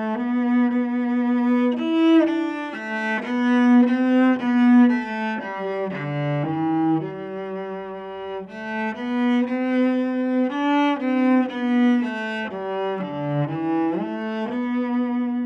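Unaccompanied cello bowed solo, playing a flowing melodic line of single notes that move up and down in pitch.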